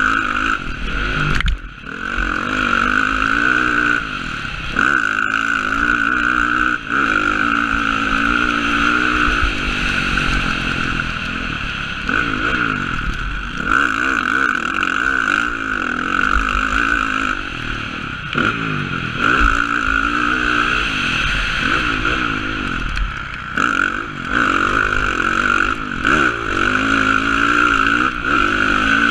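Motocross dirt bike engine under hard riding, its revs rising and falling over and over, with a few brief drops off the throttle, heard from the rider's helmet.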